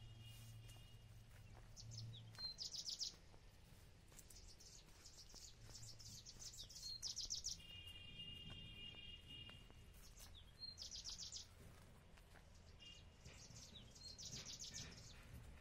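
Faint birdsong: short, rapid, high-pitched trills repeated every few seconds, with a few thin steady notes between them, over a low outdoor rumble.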